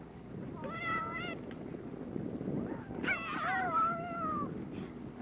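High-pitched voices giving two drawn-out shouts as a sack race starts: a short call about a second in, then a longer one about three seconds in that falls in pitch. A steady low rumbling noise runs underneath.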